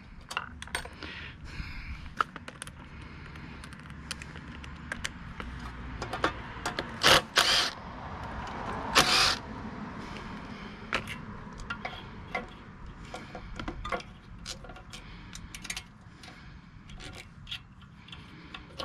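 Hand tools and metal parts clicking, clinking and scraping on a Tecumseh 5.5 small engine being taken apart, with two louder scraping noises about seven and nine seconds in.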